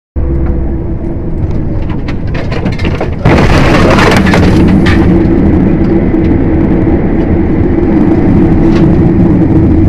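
Steady vehicle engine drone and road noise as heard from inside a moving cab. About three seconds in it gets louder, with a brief loud rushing hiss, and stays at the higher level.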